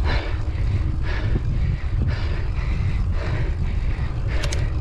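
Wind rumbling on the GoPro's microphone while riding a road bike, a steady low buffeting. Over it the rider breathes hard about once a second while pedalling up a climb.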